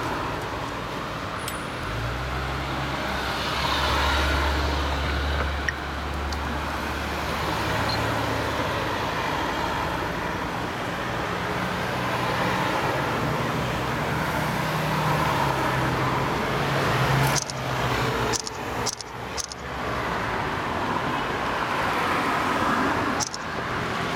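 Road traffic: cars driving past on a city street, with a low engine drone in the first half. A few sharp knocks come about three-quarters of the way through.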